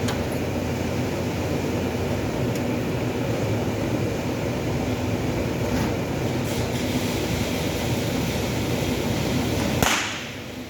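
Steady low machinery rumble with a few faint clicks, ending in a sharp click near the end, after which the noise drops much quieter.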